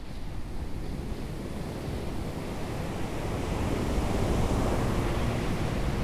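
Ocean surf washing over rocks: a steady rush of wave noise that swells louder through the middle.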